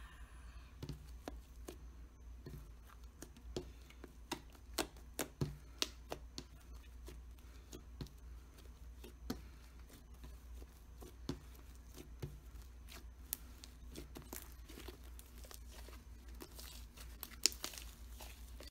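Hands kneading and stretching slime, its sticky surface giving small irregular clicks and pops as it is folded and pulled apart.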